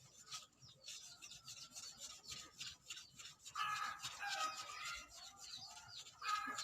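Newspaper pad rubbing green polishing compound over a metal engine casing, a quick run of short scratchy strokes as the casing is polished toward a chrome-like shine. From about halfway through, a bird calls.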